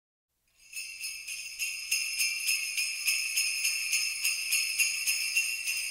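Sleigh bells shaken in an even beat, about three shakes a second, fading in just under a second in: the bell intro of a recorded song.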